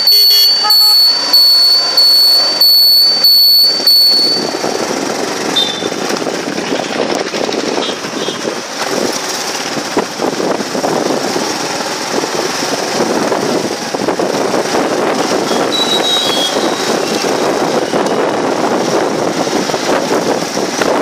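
Engine and road noise of a moving vehicle in city traffic, heard from inside it. For the first four seconds a steady high whine runs over a rhythmic pulsing of a little over one beat a second. Then the noise settles into an even rumble, with a couple of short high tones about six and sixteen seconds in.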